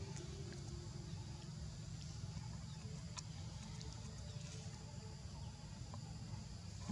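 Outdoor ambience in trees: a steady low rumble with a few faint sharp clicks and faint high chirps, and no clear animal call.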